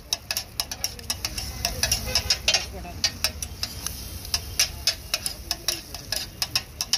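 Metal spatula chopping and scraping food on a flat street-food griddle (tawa): rapid, irregular metal-on-metal clacks, a few a second, over a faint sizzle.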